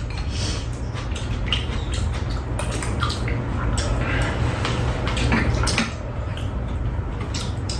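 Close-up eating sounds: wet slurping and chewing of enoki mushroom dishes, with scattered clicks of spoons and chopsticks against bowls, over a steady low hum.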